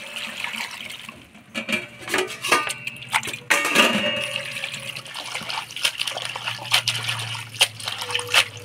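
Water splashing and sloshing as pumpkin shoots and leaves are washed by hand, in irregular sharp splashes with a louder burst of sloshing a little before the middle.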